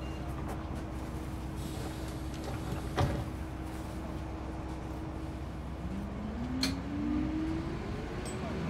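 City bus interior ambience: the engine running with a steady low hum, a sharp knock about three seconds in, and a rising tone in the last couple of seconds, as of the bus picking up speed.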